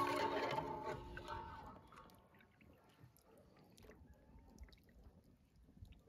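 A sudden knock from a hard object, ringing with a clear tone that fades over about two seconds, followed by faint scattered clicks of kitchen handling.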